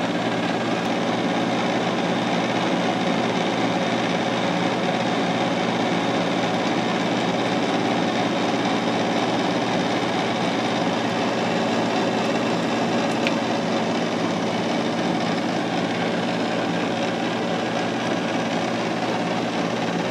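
Manual metal lathe running steadily, its drive and gearing giving an even hum of several steady tones, while a carbide threading insert takes a thread-cutting pass on the end of a shock shaft.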